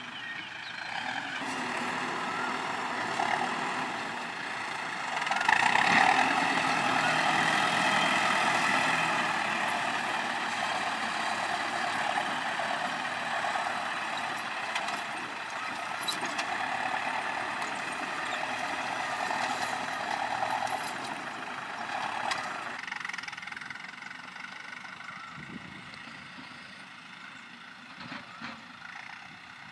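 CLAAS Talos 240 tractor's diesel engine running under load as its front blade pushes and grades soil. It is loudest about five seconds in and grows fainter after about 23 seconds.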